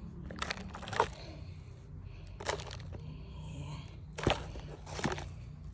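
A handful of sharp knocks and clatters, spaced a second or more apart, as objects are handled and set down, over a low steady hum.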